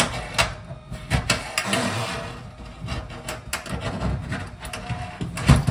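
Chrome kitchen mixer tap and its braided flexi hose being handled and fed through the tap hole of a stainless steel sink: scattered clicks and knocks on the metal with a stretch of scraping, and one louder knock near the end.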